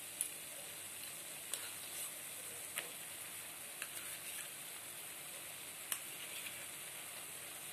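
Potatoes and yardlong beans sizzling steadily in a pan, with a handful of short, light clicks of a metal spatula and spoon against the pan.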